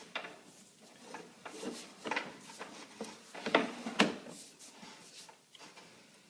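A series of short, light knocks and rustles, with two louder knocks about three and a half and four seconds in.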